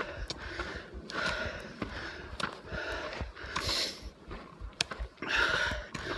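A hiker breathing hard while climbing uphill, one heavy breath about every second, picked up close by a chest-mounted phone. A few short clicks sound between the breaths.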